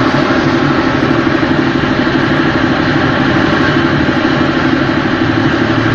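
S-300 surface-to-air missile's solid-fuel rocket motor burning at its launcher instead of climbing away: a loud, steady rushing roar of exhaust that does not change.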